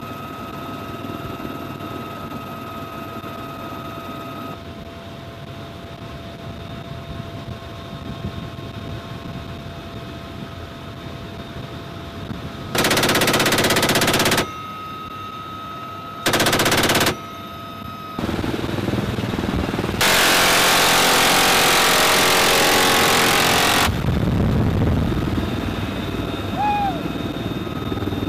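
Helicopter door gun firing three bursts of rapid fire, each a continuous buzz of shots: the first about a second and a half long, the second under a second, and the last and longest about four seconds. Before them a steady helicopter engine runs with a faint whine.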